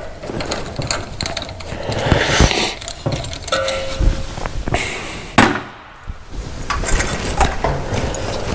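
Metal hand tools clinking and clattering as they are handled and set down, with a short ringing note from struck metal a little after three seconds in and a sharp knock a little past the middle.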